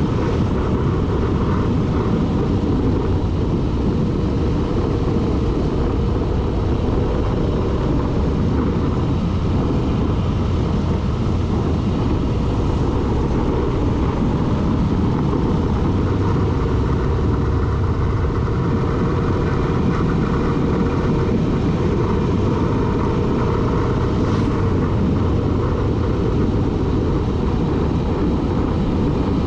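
A vehicle driving at speed: a steady engine drone under a constant rush of road and wind noise.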